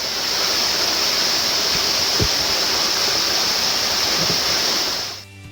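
Waterfall rushing: a loud, steady noise of falling water that cuts in and out abruptly, with a brief low thump about two seconds in.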